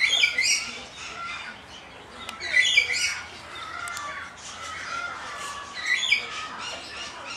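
Patagonian conures squawking: three loud calls (just after the start, about two and a half seconds in, and about six seconds in), with fainter, thinner calls in between.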